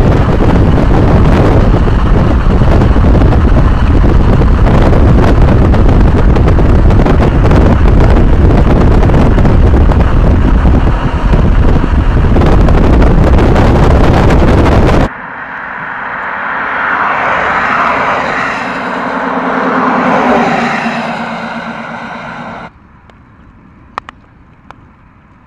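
Very loud, steady rush of wind and road noise from a moving car. About fifteen seconds in it cuts to a softer rushing sound that swells and fades, then to quiet with a few faint clicks.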